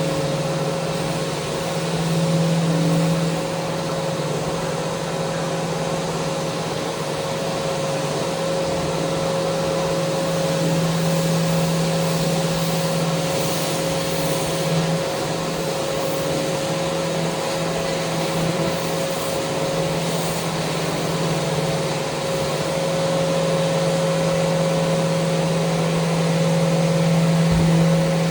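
Electric power sander running steadily against a mounted handrail: a constant motor hum over the hiss of the abrasive, swelling a little in loudness now and then.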